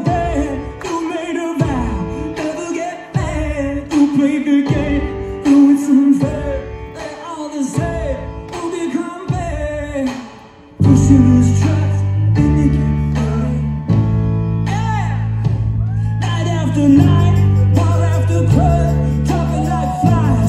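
Rock band playing live: male lead vocal over electric guitars, bass and drums. For the first ten seconds the band plays stop-start hits about once a second under the singing; after a short drop it comes back in fuller with sustained bass notes.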